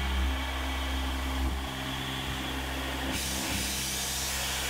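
Tormach 770 CNC mill running, its spindle and end mill cutting an aluminium part: a steady machine hum of several low tones under a hiss. The hiss grows louder about three seconds in.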